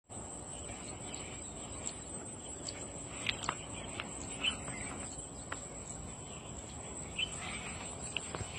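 A steady high-pitched insect trill runs through, with scattered short bird chirps and a few sharp ticks over a low background hiss.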